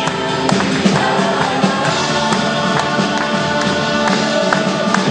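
A group of voices singing together to a live band, with drum strikes keeping the beat.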